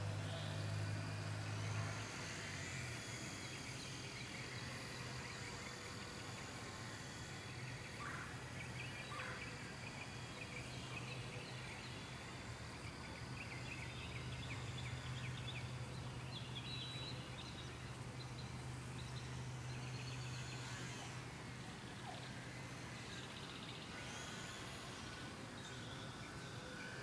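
Low steady drone of a small RC plane's motor flying high overhead, shifting pitch about two seconds in and fading out near the end, under birds chirping and insects calling.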